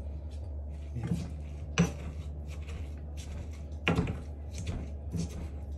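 Stone pestle knocking and grinding in a stone mortar, mashing garlic cloves and rosemary into a paste, in repeated short strokes with a few sharper knocks.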